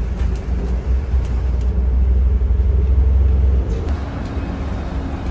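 Steady low rumble of a moving vehicle, a little louder for about two seconds in the middle.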